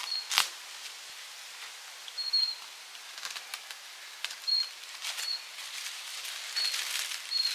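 Scattered rustles and sharp clicks of work at close range, with short high-pitched chirps at one steady pitch every second or so.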